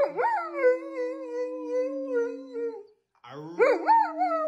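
A dog howling: two long howls, each sweeping up at the start and then held, the second beginning about three seconds in. A lower, steadier voice holds a note alongside each howl.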